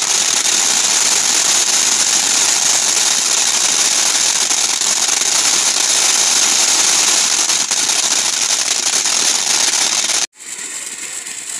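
Ground fountain firework spraying sparks with a loud, steady hiss. About ten seconds in it cuts off suddenly, and a quieter hiss follows.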